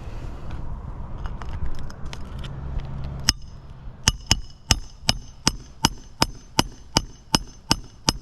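Hammer tapping in a steady run of sharp, ringing strikes, about three a second, starting a little past three seconds in; before that, a low rumble with scattered faint clicks.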